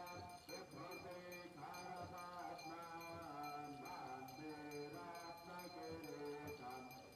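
Devotional aarti music: a voice chanting a melodic hymn over a steady drone, continuing throughout.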